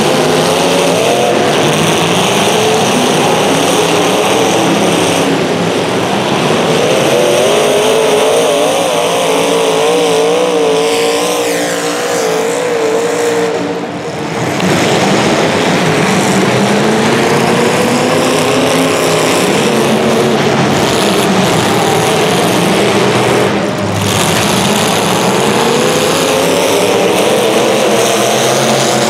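Several race engines running hard together, their pitches rising and falling as they rev through a heat race, with a short drop in level about halfway through.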